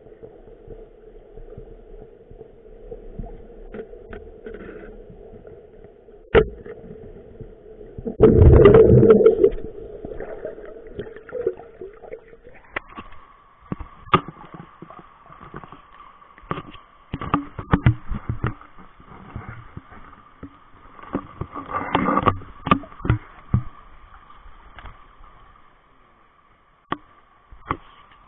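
Muffled underwater sound of a river, heard through a camera held beneath the surface: a steady hum of moving water that shifts higher about thirteen seconds in. Scattered sharp knocks and clicks run throughout, with a loud gurgling rush about eight seconds in.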